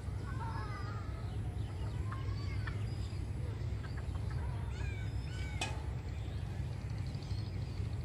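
Birds calling in short scattered chirps, crow-like caws among them, over a steady low rumble. A single sharp click about five and a half seconds in.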